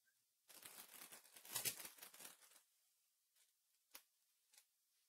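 Faint rustling and sliding of trading cards being handled for about two seconds, followed by a few soft, separate clicks.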